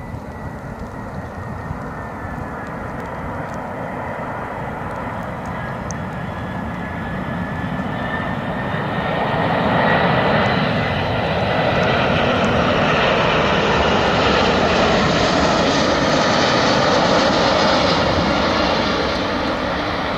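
Airbus A340 jet airliner on low final approach, its four turbofan engines passing close: a high fan whine that dips and then rises in pitch, swelling about ten seconds in into a loud, steady rush of engine noise that holds and then fades near the end.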